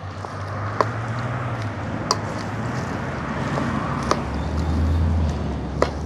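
Wooden spoon stirring chopped vegetables in a metal cooking pot, knocking against the pot four times, over a steady low hum.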